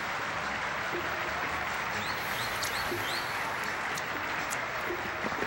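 Steady applause from many hands clapping continuously, with a few short, high rising tones about two to three seconds in.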